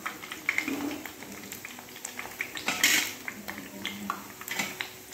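Suseeyam balls deep-frying in a kadai of hot oil, the oil crackling and spitting, with clicks of a perforated metal skimmer against the pan. The spattering comes from water left on the ladle meeting the hot oil, with one loud hissing splutter about three seconds in.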